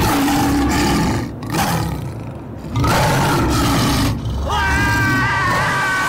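A lion roaring twice, loud and rough, each roar lasting about a second. About four and a half seconds in, a man gives a long high-pitched yell.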